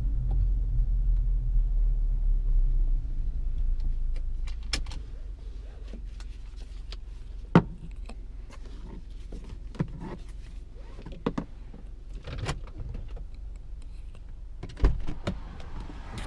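Car sounds, most likely a 2015 Hyundai Tucson: a steady low rumble that fades about three seconds in, then scattered sharp clicks and knocks, the loudest about halfway through and another pair near the end.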